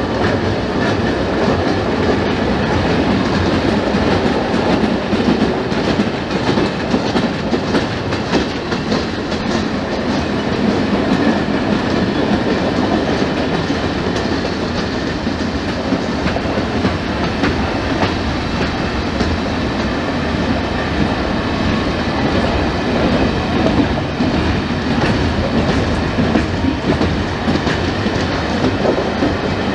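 A long trackwork spoil train of open wagons rolling past close by: a steady rumble of wheels on rail, with constant rapid clicking as the bogies pass over the rail joints.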